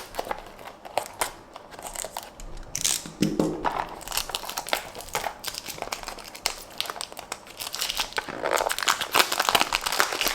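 Packaging for a Tomica die-cast toy car being handled and opened by hand: irregular crinkling and rustling with small clicks and scrapes, busiest around the middle and near the end.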